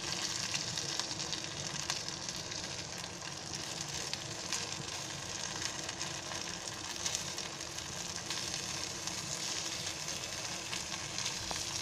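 Paneer cubes and thick tomato-cream masala sizzling steadily in a nonstick pan on the gas, roasting after the lid is taken off. A steel spoon stirs through them with a few light scrapes and clicks.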